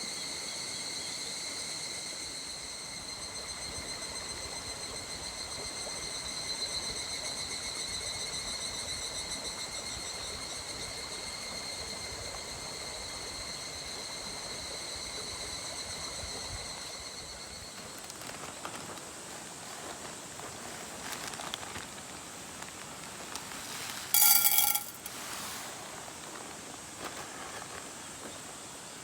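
Mountain stream running steadily, with a high-pitched insect trill that stops about 18 seconds in. A brief, loud sharp sound comes about 24 seconds in.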